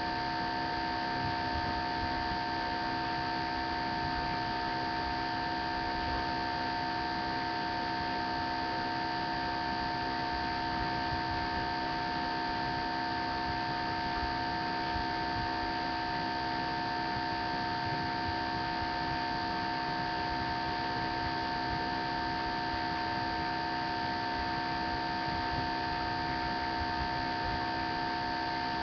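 Steady electrical hum made of several fixed pitches over a hiss, with no other sound rising above it.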